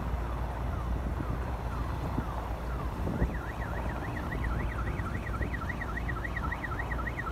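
Helicopter running on the ground, a steady low rumble. About three seconds in, a siren starts up with a fast warble of about four rises and falls a second.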